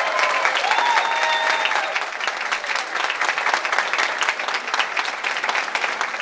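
Audience applauding steadily, with a whooping cheer over the clapping in the first two seconds.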